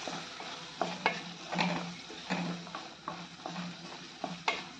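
A wooden spatula stirs green peas and spice powders frying in a stainless-steel kadai. It knocks and scrapes against the pan a little more than once a second, over the faint sizzle of the oil.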